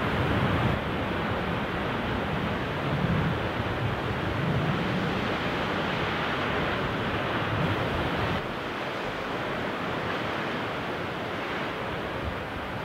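Lake Superior storm waves breaking and surging against a rocky shoreline, heard as a continuous wash of surf with low swells of rumble as the bigger waves hit. Wind runs through it. The surf drops a little quieter and thinner about eight seconds in.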